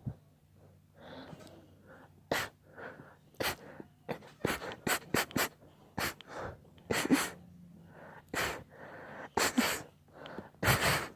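Sneezing: a long run of short, sharp sneezes, several in quick succession, with breathy inhales between them and the strongest one near the end.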